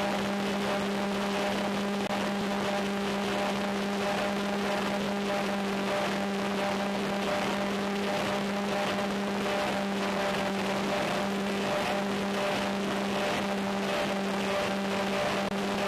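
Multiplex Twinstar II's twin 1350Kv electric motors and propellers droning steadily at a constant cruise throttle, heard from on board over a steady hiss of wind or radio static.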